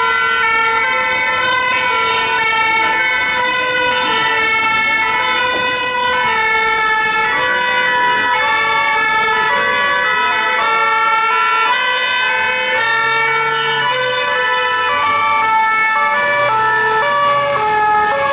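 Several two-tone sirens on a convoy of French ambulances and a police car, sounding together and out of step with one another, each stepping back and forth between a high and a low note.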